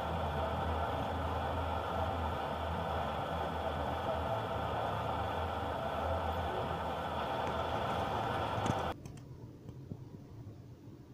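A stopped car's engine idling steadily, heard through the dashcam inside the cabin. Near the end there is a click as the camera is handled, and the engine sound cuts off abruptly to a faint hiss.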